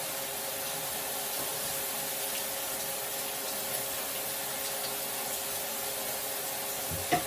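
Chicken sizzling on a greased grill pan: a steady hiss, with a faint steady hum beneath it and a single sharp click near the end.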